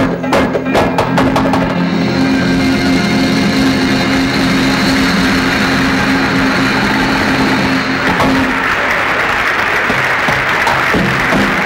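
Live traditional Tunisian folk band playing: frame drums struck hard at the start, then held melody notes over the drumming, with the sound turning denser and noisier about eight seconds in.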